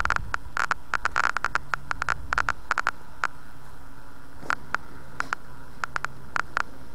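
Irregular clicking on the audio track, a recording artifact the uploader calls annoying. The clicks come thick and fast for the first few seconds, then thin out to scattered single clicks, over a steady hiss.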